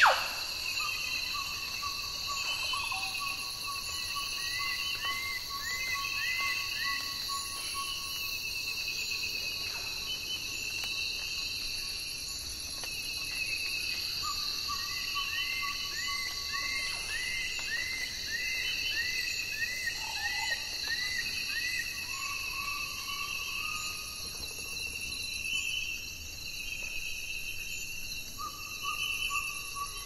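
Tropical rainforest ambience: a steady, high-pitched chorus of insects, with runs of short repeated calls, about two a second, that come in twice, and long, level whistle-like calls.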